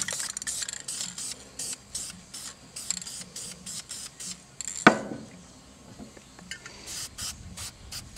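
Aerosol spray-paint can sprayed through a mylar stencil in quick short bursts, about three a second, with a sharp knock about five seconds in and a short pause after it before the bursts resume.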